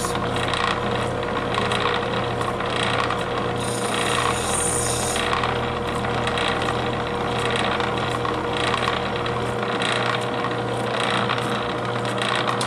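Gem faceting machine running with a gemstone held against its spinning lap: a steady motor hum under continuous scraping.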